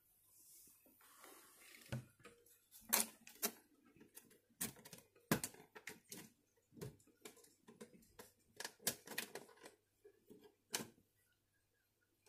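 Faint, irregular light clicks and taps of a clear plastic animal tub being handled inside a glass terrarium.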